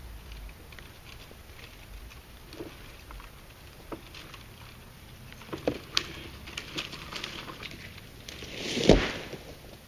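A tree crashing down in dry woods: wood cracking and twigs snapping in scattered bursts, then a rising rush through brush that ends in one heavy thud near the end.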